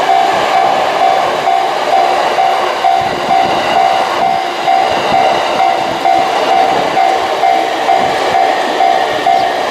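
Japanese level-crossing warning bell ringing steadily, an electronic ding repeating about twice a second, over the noise of a JR Tokaido Line train passing the crossing.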